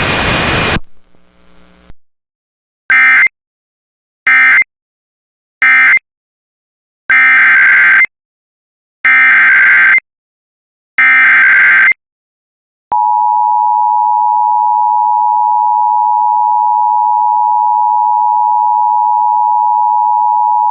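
Emergency Alert System tones: three short SAME data bursts (the end-of-message code closing the previous warning), then three longer SAME header bursts of about a second each announcing the next alert. These are followed by the steady two-tone EAS attention signal, which holds for about eight seconds and then cuts off sharply.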